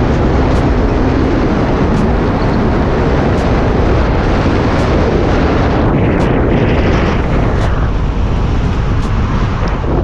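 A moving car's road and engine noise under heavy wind rushing and buffeting on the microphone, steady and loud throughout.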